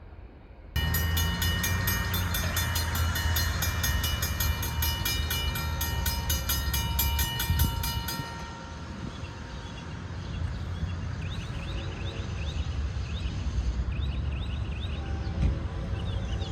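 Freight train passing close by, with a heavy low rumble of diesel locomotives and a fast rhythmic clatter from the cars. It comes in suddenly about a second in and drops to a quieter rumble after about eight seconds.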